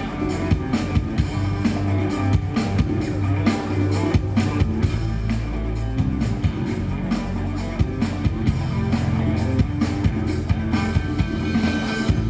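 Instrumental music: a steady, even drum beat over a sustained bass line, the intro of a song before the vocals come in.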